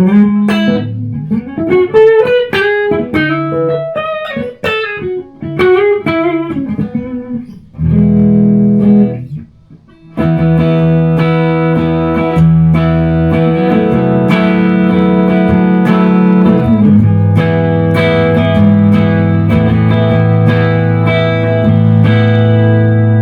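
Epiphone Les Paul electric guitar played: quick single-note lead lines with string bends for about eight seconds, a short break, then chords left ringing and sustaining.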